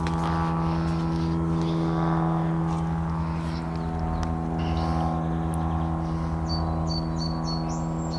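An engine idling steadily at an even speed, with short high bird chirps near the end.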